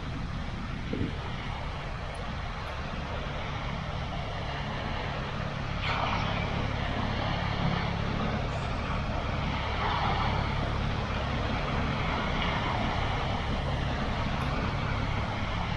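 Steady rush of small waves breaking on the shore, swelling about six and ten seconds in, over a continuous low engine-like drone.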